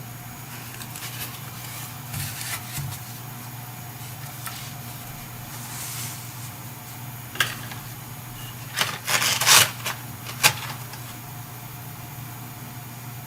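Small objects and packaging being handled: scattered rustles and sharp clicks, the loudest cluster about nine to ten and a half seconds in, over a steady low hum.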